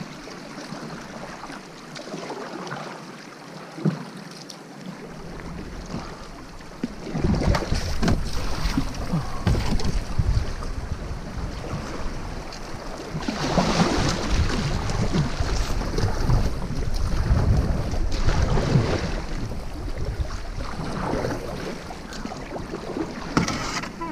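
Wind buffeting the microphone around a kayak on moving water, with one sharp knock about four seconds in. From about seven seconds the gusty rumble grows much louder.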